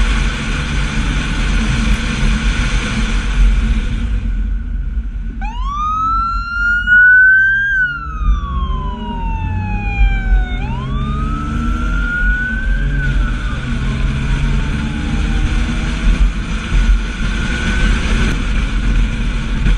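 Police car siren wailing in two slow sweeps, each rising quickly and then falling away, starting about five seconds in. Under it runs the steady low rumble of a moving car's engine and road noise.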